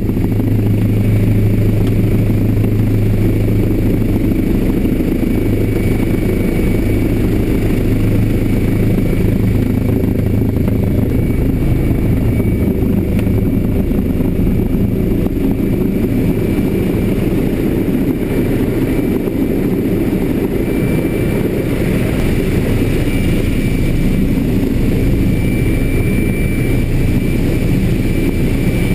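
Steady, loud, low engine-like rumbling hum, a sci-fi sound effect for a hovering alien spacecraft, with a faint high thin tone above it.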